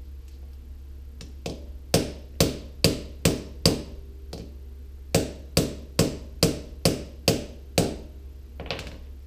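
Ball-peen hammer striking a steel socket set on a pneumatic pencil grinder's rotor shaft, driving the rotor assembly and front motor housing out of the motor housing. The sharp metallic taps come about two a second with a short ring after each: a run of five, a pause, then seven more.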